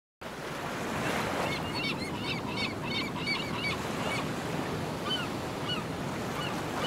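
Steady rush of sea surf with birds calling over it: a quick run of repeated chirps about a second and a half in, then single short falling notes every second or so.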